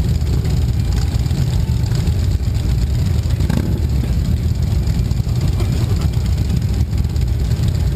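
Several motorcycle engines idling steadily together, a low even engine sound close by.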